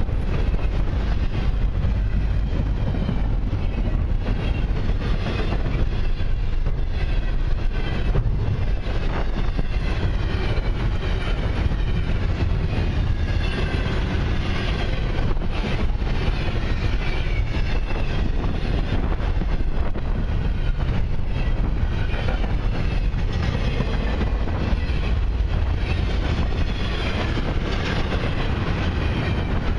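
Freight train of double-stack intermodal well cars rolling past close by: a loud, steady rumble of steel wheels on rail, with a constant run of clicks as the wheels cross rail joints.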